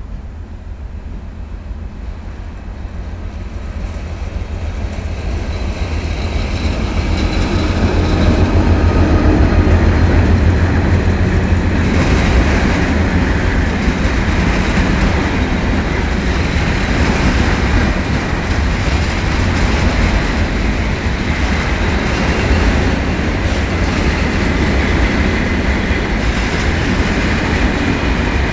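Diesel freight locomotive approaching and passing, its low engine rumble swelling to a peak about a third of the way in, followed by the steady rolling noise of a long train of container flat wagons going by.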